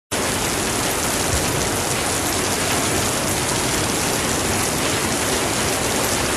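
Steady rain falling, an even hiss of many drops that starts abruptly at the very beginning and holds at one level.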